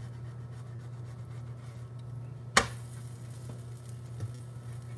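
A single sharp click about two and a half seconds in, and a fainter tap near the end, over a steady low hum.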